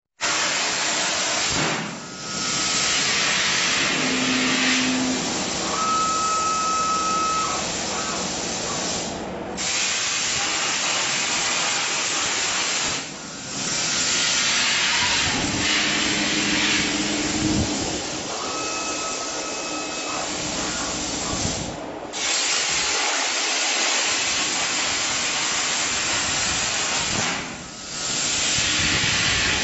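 Hypertherm 105 A plasma torch on a CNC plasma table cutting mild steel plate: a loud, steady hiss of the arc and air jet that dips briefly about five times, with a few short whining tones coming and going.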